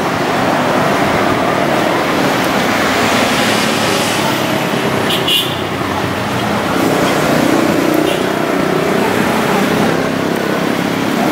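Steady street noise, mostly road traffic going by, with one short click about five seconds in.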